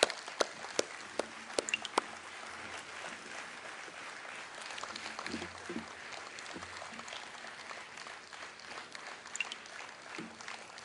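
Audience applauding, moderately quiet, with a few sharp separate claps standing out in the first two seconds before it settles into a steady patter.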